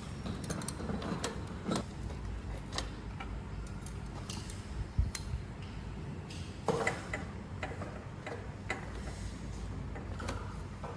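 Wrench and nuts clicking and tapping on metal as two nuts are tightened down on the generator's carburetor mounting: irregular light ticks with a few sharper knocks.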